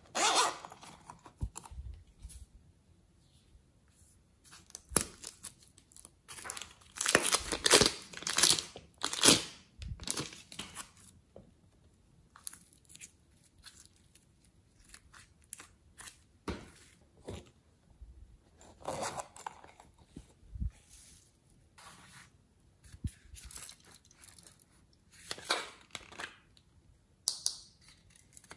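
Hands stretching and pulling apart a lump of soft clay, with scattered sticky tearing and crinkling sounds that come in short bursts, the busiest stretch about six to ten seconds in.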